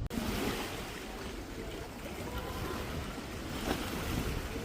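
Steady outdoor waterside ambience: wind and water washing against the shore, with faint voices in the distance.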